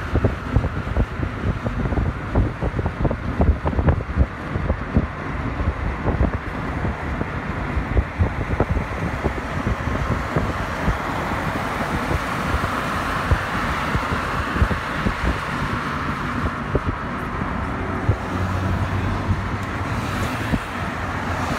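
Road noise from inside a moving car, with wind gusting on the microphone. Tyre and traffic hiss swells midway as other vehicles pass close alongside.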